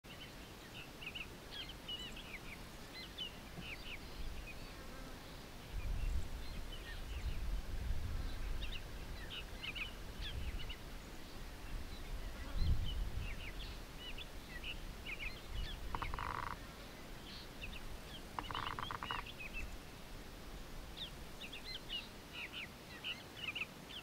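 Wild birds chirping and calling in many short, high notes throughout, over a faint outdoor background. Low rumbling comes and goes through the middle, and two short buzzes sound near the last third.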